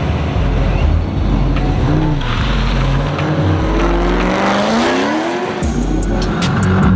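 Drift car's engine revving hard, its pitch dipping and climbing again around the middle, with tyres squealing and skidding through the slide.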